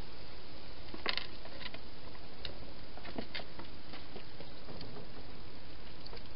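Wild hedgehog moving about at the food bowls inside a clear plastic feeding box: scattered light clicks and taps, the loudest about a second in, over a steady background hiss.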